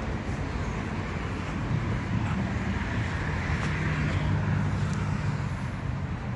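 A motor vehicle engine running with a steady low rumble, a little louder around the middle.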